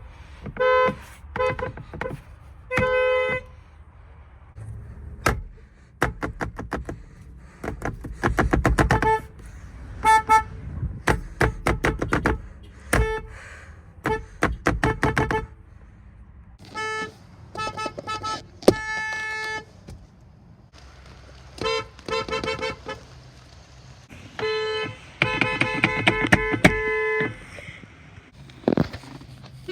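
Kia car horns sounding again and again, from quick single taps and rapid double toots to held blasts of a second or two, with a low rumble between them.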